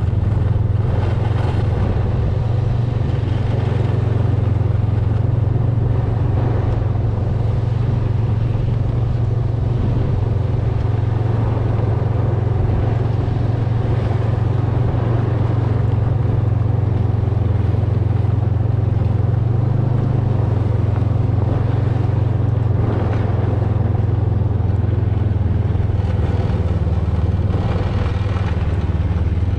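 Snowmobile engine running steadily at cruising speed, a loud, even low drone that holds without change.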